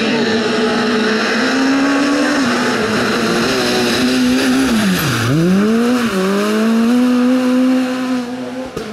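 Peugeot 207 rally car's engine pulling at high revs as it approaches and passes. The revs drop sharply about five seconds in, then climb again as it accelerates away.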